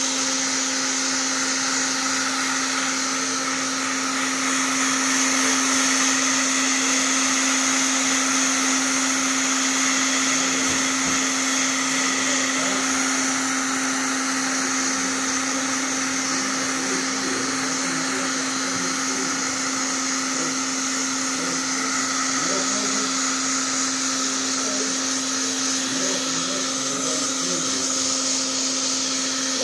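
Black & Decker heat gun on its high setting blowing steadily: a constant motor hum under an even hiss of rushing air as it heats the plastic of an outboard fin.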